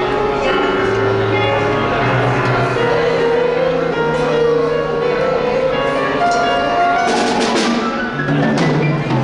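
Live band music: held melodic notes over a bass line, with percussion hits coming in about seven seconds in.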